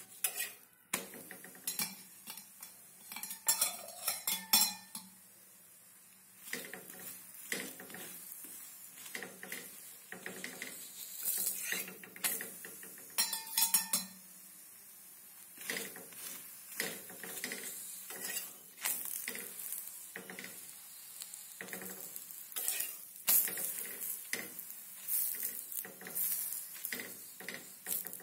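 Steel spatula scraping and clicking irregularly against a flat metal tawa while a methi thepla fries in oil, with faint sizzling.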